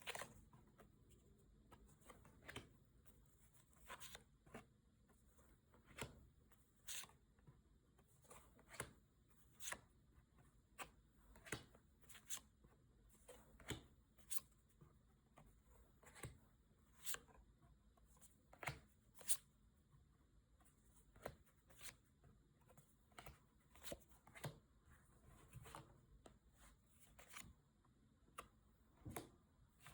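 Pokémon trading cards being flipped through one at a time, with a short, soft flick or snap about once a second.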